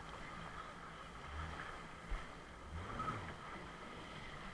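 Jet ski engine running steadily, with rushing water and a dull thump about two seconds in.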